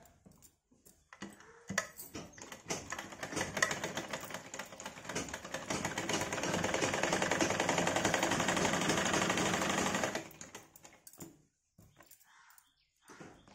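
Domestic straight-stitch sewing machine stitching a seam in cotton blouse fabric, a fast, even clatter of needle strokes. It starts about two seconds in, runs loudest and steadiest in the middle, and stops about ten seconds in.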